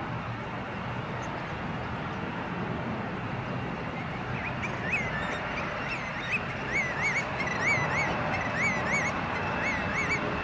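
Airbus A350's Rolls-Royce Trent XWB jet engines at takeoff thrust during the takeoff roll, a steady rushing noise. From about halfway in, a bird calls over it again and again in short, high notes that rise and fall, loud enough to stand out above the jet.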